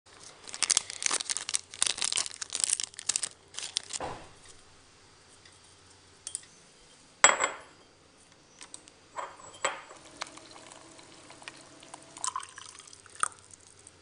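Tea being made by hand: quick crinkling and rustling of a tea bag packet for the first few seconds, a sharp knock about seven seconds in, then clinks of crockery and hot water poured from a stainless kettle into a cup.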